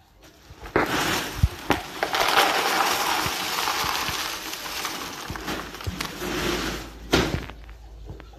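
Unshelled groundnuts (peanuts in the shell) pouring from a sack into a plastic tub: a dense rattling of shells that starts about a second in and stops near the end with a louder knock.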